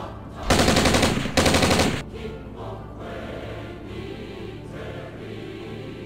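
Two bursts of machine-gun fire sound effect, each about half a second of rapid shots, in the first two seconds, over background music that continues afterwards.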